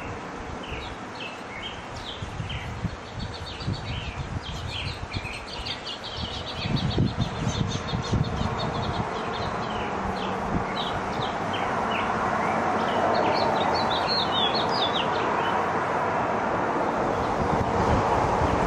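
Small songbirds chirping, with quick high notes and a rapid trill. From about twelve seconds in, a steady rushing noise swells up and stays.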